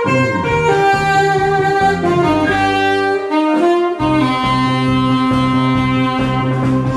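Instrumental break of a Korean trot song: a saxophone plays the melody over the backing accompaniment, a run of changing notes and then a long held note from about four seconds in.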